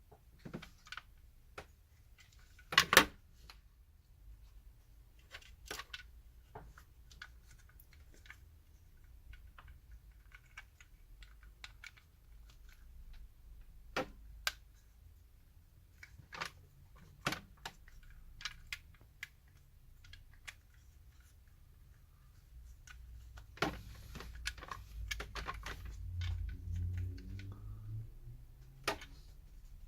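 Scattered sharp plastic clicks and taps as the parts of a PS4 controller are handled and snapped back together, the loudest a quick double click about three seconds in. A low rumble swells near the end.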